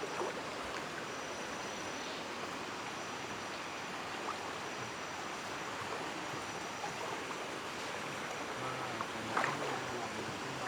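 Floodwater rushing steadily, an even wash of water noise with no break.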